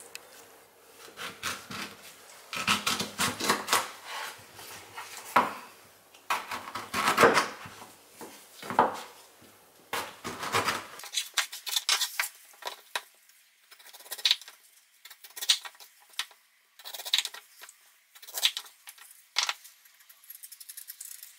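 A chef's knife cutting and peeling a pear on a bamboo cutting board: irregular slicing and scraping strokes through the fruit, with the blade tapping the board. About halfway through the strokes turn shorter and sharper, with gaps between them.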